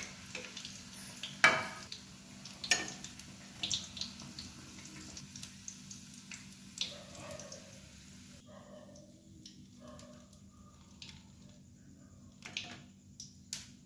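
Hot oil sizzling as deep-fried chana dal pakoras are lifted out with a slotted metal ladle, with sharp clinks of the ladle scattered through, the loudest about a second and a half in. The sizzle drops away about two-thirds of the way through.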